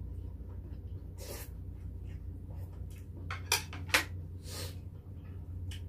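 Mukbang eating sounds: short slurps and mouth smacks from people eating beef short-rib soup with noodles, with two sharper, louder ones about three and a half and four seconds in, over a steady low hum.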